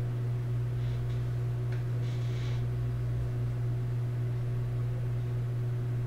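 Room tone dominated by a steady low electrical hum with faint hiss, and two brief soft rustles about one and two seconds in.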